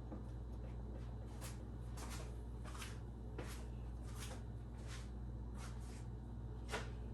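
A series of about ten short, light scuffs and rustles as the intake manifold is handled and lowered onto the cylinder heads, the last one the loudest, over a steady low hum.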